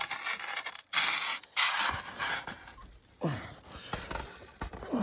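Canoe paddle scraping and crunching against ice in a series of strokes.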